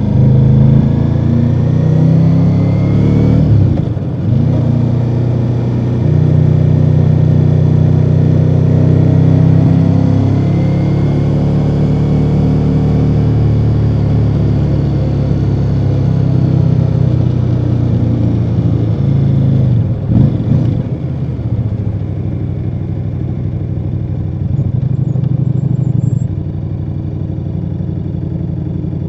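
2024 Ducati Multistrada V4 Rally's V4 engine running on its stock exhaust while the bike is ridden: a steady engine note, briefly broken about four seconds in and again about twenty seconds in, as at gear changes. The note falls to a lower, quieter level near the end.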